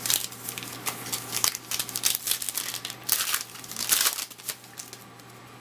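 Crinkling of a foil trading-card pack wrapper, handled and torn open in a quick run of irregular crackles that dies down about four and a half seconds in.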